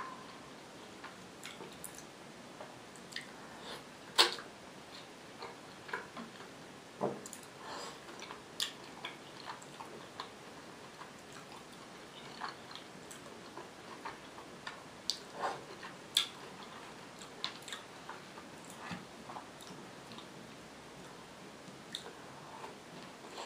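Close-miked eating sounds: chewing and wet mouth clicks, with scattered irregular clicks and a few louder sharp ones, the loudest about four seconds in and another near the middle.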